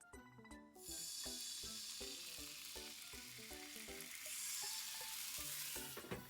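Sizzling in a hot frying pan as soufflé pancakes cook. It starts sharply about a second in and cuts off suddenly near the end, over light background music.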